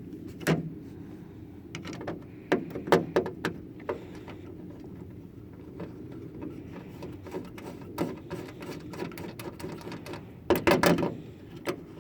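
Scattered sharp clicks and metallic knocks of bolts and hand tools being handled while fitting a bonnet latch, with a quick run of clicks near the end.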